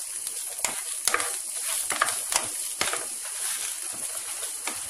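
Chopped cauliflower and carrot sizzling in hot oil in a frying pan, with a steady hiss, while a wooden spatula stirs them, scraping and knocking against the pan at irregular moments.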